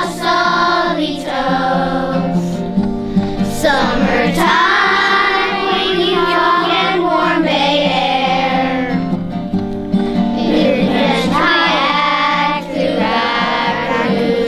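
A third-grade class of children singing a song together over instrumental accompaniment.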